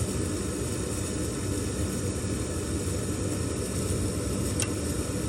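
Gas furnace's inducer fan motor running with a steady hum during the start cycle, with a single sharp click about four and a half seconds in as the gas valve opens. The igniter is not glowing, so the gas does not light: a failed igniter, shown as error code 34.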